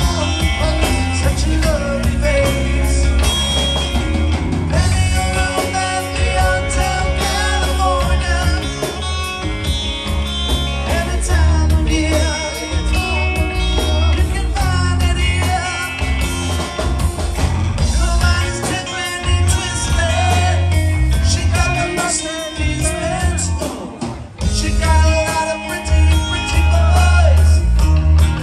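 Rock band playing live, with electric guitars, bass and drums and a singing voice.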